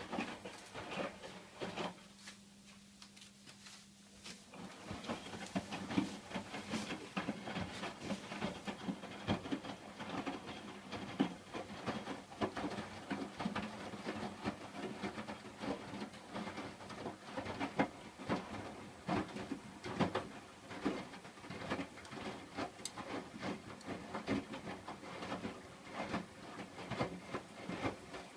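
Hotpoint washing machine in its wash cycle: the drum turning the wet laundry with a busy run of soft knocks and sloshing over a low motor hum. The tumbling drops off about two seconds in and starts again a couple of seconds later.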